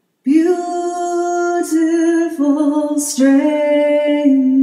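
A woman singing solo and unaccompanied, starting after a short pause and holding long, slow notes on the word 'beautiful'.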